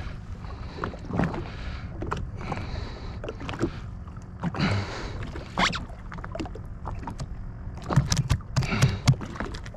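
Choppy sea water sloshing against a Sea-Doo Fish Pro's hull as it sits adrift, with a steady low rumble. Several short knocks and clatters come from handling on board, the busiest stretch near the end.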